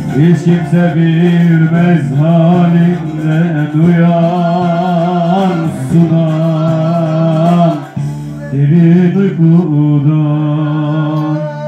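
A man singing a Turkish folk song into a microphone: long held notes with wavering ornaments, with a short break for breath about eight seconds in.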